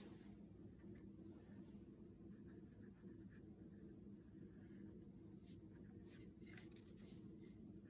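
Faint scratchy strokes of a small watercolour brush on paper, in a few short runs, over a low steady hum.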